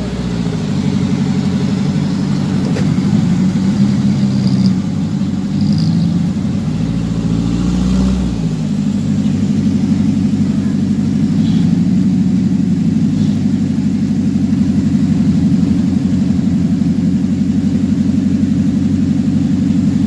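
Engines of a slow-moving convoy of modified Suzuki Jimny off-road 4x4s passing close by. The engine note rises and falls several times as they rev and ease off, then runs steadily for the second half.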